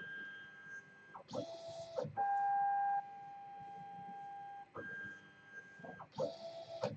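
NEMA 17 stepper motors of a cantilever 3D printer whining at steady pitches as the print head moves between probe points during G29 automatic bed leveling. The tone switches between a few fixed pitches, each held for about a second, and the sequence repeats about every five seconds.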